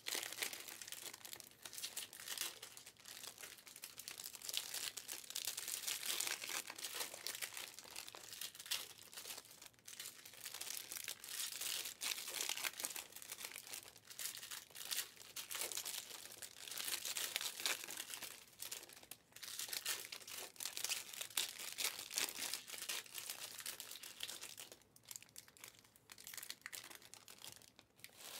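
Trading card pack wrappers crinkling and tearing as packs are ripped open and handled, a continuous crackle with a short lull near the end.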